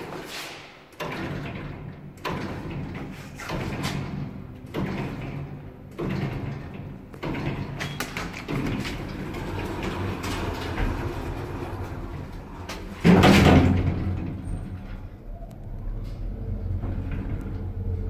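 Lift car's automatic sliding doors closing with a loud bang, then the car starting off with a steady low rumble from the drive. Before that there is a series of sharp knocks about once a second.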